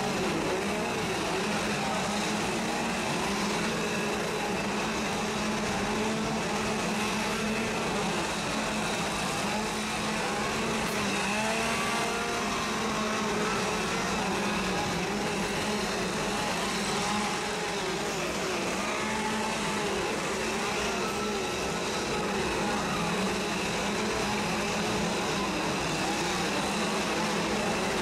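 Several chainsaw engines running and revving among a crowd, continuous through the whole stretch, with crowd voices underneath.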